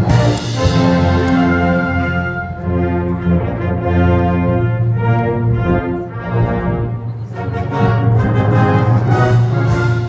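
Military wind band playing: brass and saxophones sounding full, sustained chords that change every second or so, with a bright crash at the start and another near the end.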